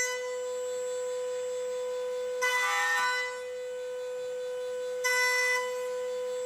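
High-speed router spindle on a woodworking machine whining steadily at one high pitch while its bit cuts a slot into a round wooden table leg. About two and a half seconds in and again about five seconds in there is a short burst of cutting noise as the bit bites into the wood.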